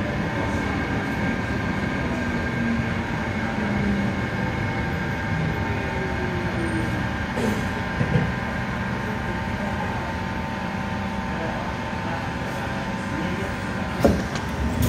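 C151 MRT train heard from inside the car while running on the line: a steady rumble with a motor whine that shifts slowly in pitch. There is a sharp knock about eight seconds in and a louder one near the end.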